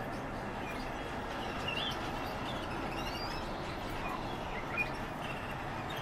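Steady outdoor background hum with a few faint, short bird chirps and rising whistles scattered through, and a brief click near the end.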